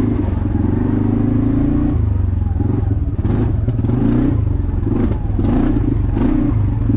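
ATV engine running steadily as the quad is ridden, with a few short knocks and clatters along the way.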